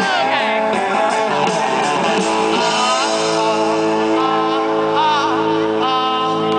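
Rock music with a singer and guitar, the chords held steady through the second half.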